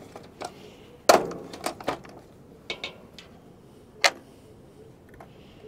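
Sharp plastic clicks and snaps as a clear plastic Inku squid-jig box has its latches unclipped and its lid opened, a quick cluster of clicks about a second in, then one more sharp click about four seconds in.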